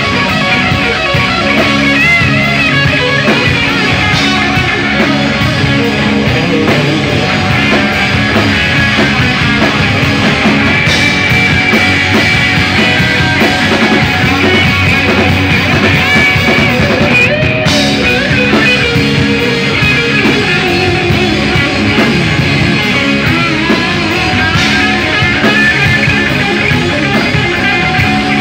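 Live rock band jamming: electric guitar over a drum kit, loud and continuous.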